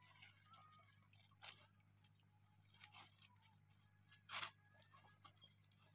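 Faint rustling and scraping of a woven plastic sack being handled as a fish is put into it: a few short rustles, the loudest about four and a half seconds in.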